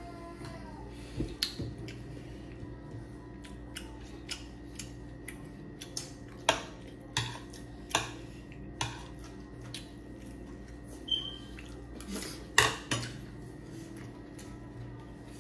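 Metal spoons clinking and scraping on a ceramic plate and glass bowl: a dozen or so short, sharp clinks at irregular intervals, loudest about three quarters of the way in, over a faint steady hum.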